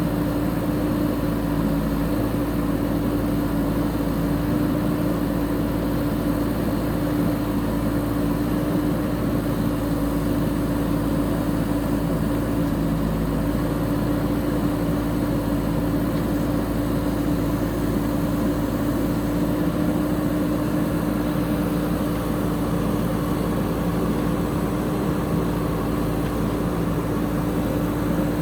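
JCB 3DX backhoe loader's diesel engine running at a steady speed, with an even hum.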